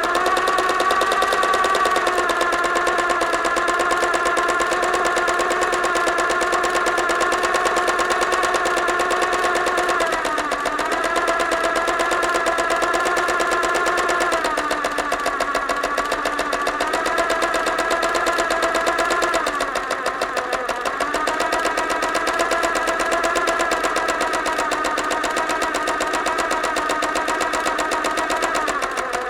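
Sewing machine running steadily, stitching fast with a rapid even chatter. Its speed drops and picks up again a few times, about ten, fifteen and twenty seconds in.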